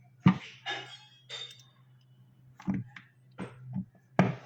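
About seven sharp metallic clinks and knocks at irregular intervals, a few ringing briefly: a screw and tool being handled against the refrigerator's metal and plastic parts while the screw is fitted.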